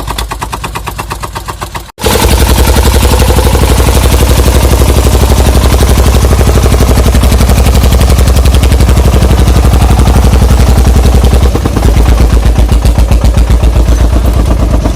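Single-cylinder Dong Feng diesel engine of a homemade truck running under load, a fast, even, very loud chugging. It breaks off for an instant about two seconds in and comes back louder.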